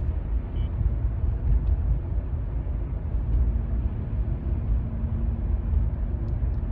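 Car cabin noise while driving: a steady low rumble of road and engine heard from inside the moving car, with a faint steady hum joining in for a few seconds midway.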